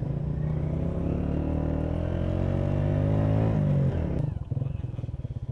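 Motorcycle engine pulling with its pitch rising steadily for about three and a half seconds, then falling away quickly as the throttle is closed, dropping to a quieter low run.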